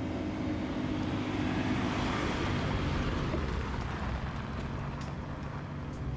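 A four-wheel drive running along a bush track: steady engine and tyre noise with a low hum, fairly even throughout.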